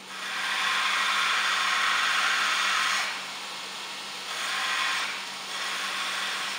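Belt grinder running with a steady hum while the rim of a hand-forged nail's head is pressed against the abrasive belt to round it off. One rasping grind lasts about three seconds, then two shorter grinds follow.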